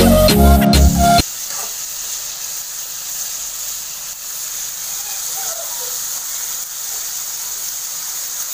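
Background music that cuts off suddenly about a second in, followed by onions and chopped tomatoes sizzling steadily as they fry in olive oil in a wok.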